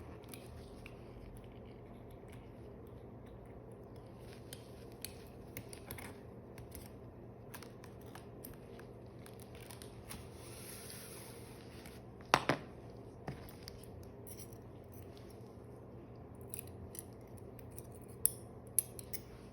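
Metal suturing instruments clicking and tapping as stitches are placed, with scattered light clicks, one sharp loud click about twelve seconds in and two more near the end.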